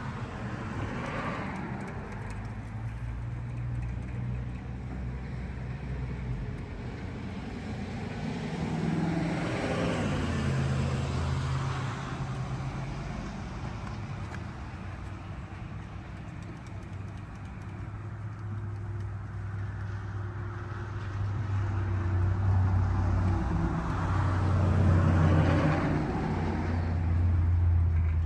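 Road traffic: cars passing by, the engine and tyre noise swelling and fading twice, around ten seconds in and again near the end.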